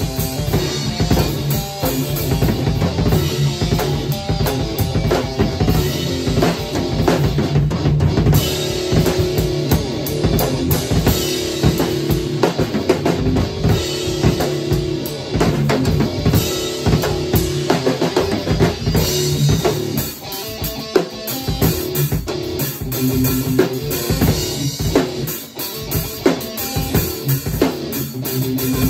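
Live drum kit and electric guitar jamming together: kick drum, snare and cymbals driving a steady rhythm under held and repeated guitar notes.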